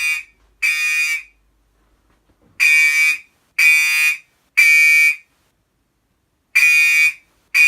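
First-generation Gentex HG124R fire alarm horn sounding in the temporal-three evacuation pattern: groups of three half-second blasts about a second apart, separated by short pauses. The horn tone is harsh and buzzy, with many overtones.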